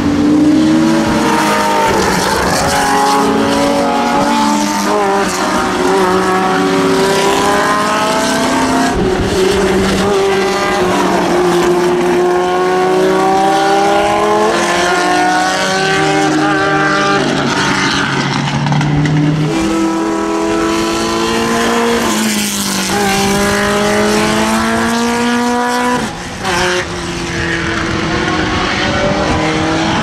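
Historic racing cars passing one after another at speed on a wet circuit. Their engines rise and fall in pitch through gear changes and lifts, over the hiss of tyre spray.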